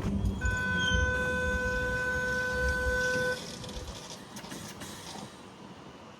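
Passenger train at the station, a low rumble that dies away after about four seconds, with a steady single-pitched tone held for about three seconds that cuts off abruptly.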